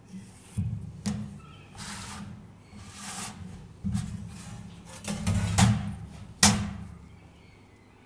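A long steel rule and a sheet of galvanised sheet metal being handled on a workbench: sharp clacks as the rule is set down and picked up, scraping slides, and a low rumble as the thin sheet shifts and flexes. The loudest clacks come near the end.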